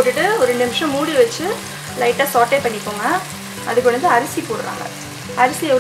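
Green peas, onion and herbs sizzling in hot oil in a stainless steel pot while being stirred.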